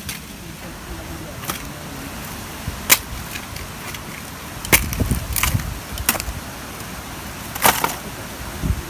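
A handful of sharp, irregular knocks and clicks, about six over several seconds, over a low steady background.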